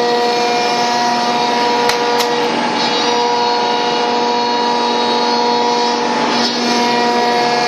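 CNC router spindle running steadily while milling MDF, a whine of several steady tones over dense cutting noise. Two sharp clicks come about two seconds in.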